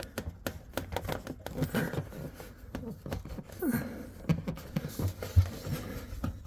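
Irregular small clicks, taps and rubbing as a softened rubber fuel-injection hose is worked by hand over the barb of a fuel pipe.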